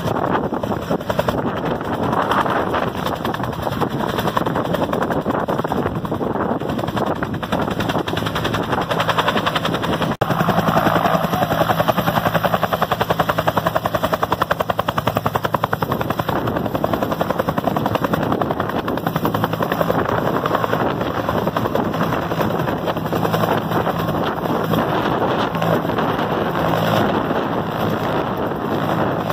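Bell UH-1 Huey helicopter running close by, its two-blade main rotor beating rapidly and steadily as it hovers low, settles on the grass and lifts off again. There is a brief dropout about ten seconds in.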